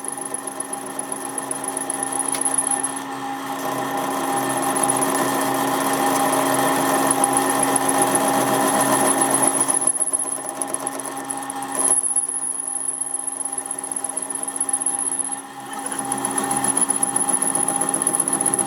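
Electric power tool running on metal work, a drill or similar, with a steady high whine. Its load rises and falls, easing off briefly about three times.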